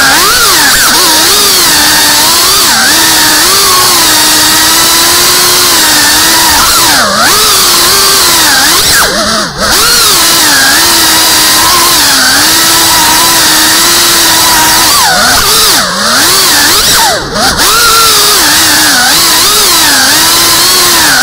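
FPV quadcopter's brushless motors and propellers whining loudly, the pitch rising and falling with the throttle, with a few brief dips where the throttle is cut.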